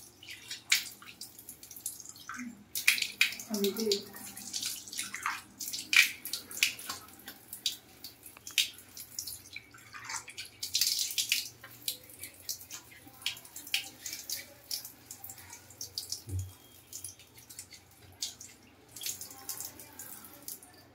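Water dripping and splashing onto wet floor tiles in irregular sharp drops, several a second.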